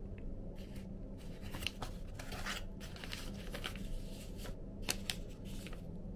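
Irregular bursts of rustling with a few light clicks, over a steady low hum.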